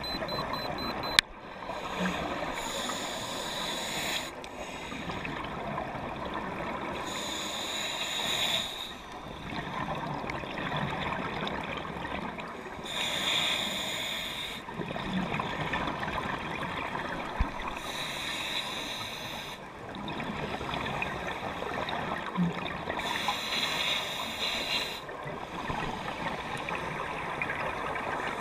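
Underwater scuba breathing through a regulator: five rushes of exhaled bubbles, each a second or two long, about every five seconds, over a steady underwater hiss. A thin electronic beeping stops with a sharp click about a second in.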